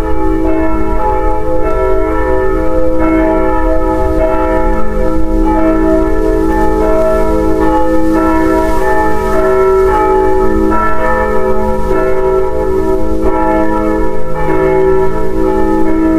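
Continuous bell-like chiming: many overlapping ringing tones that shift every second or two, over a steady low rumble.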